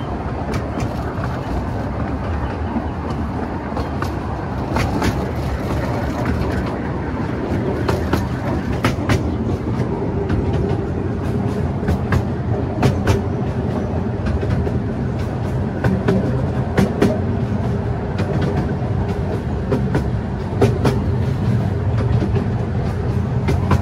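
A 12-inch gauge miniature train running along its track, heard from an open passenger carriage: a steady rumble of wheels on rail, with irregular sharp clicks and clacks as the wheels pass over rail joints and points. A faint steady whine runs through the middle few seconds.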